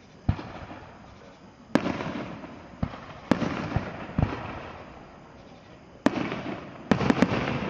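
Aerial fireworks shells bursting in a string of about ten sharp bangs, each dying away over a second or so, with a quick cluster of three bangs near the end.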